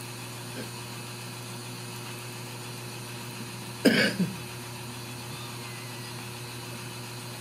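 A single short cough about four seconds in, over a steady low hum in the room.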